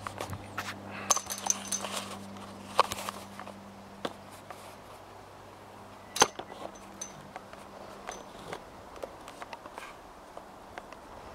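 Scattered clicks and knocks of a video camera and tripod being handled, with the sharpest knock about six seconds in. A faint low steady hum runs underneath and stops about eight seconds in.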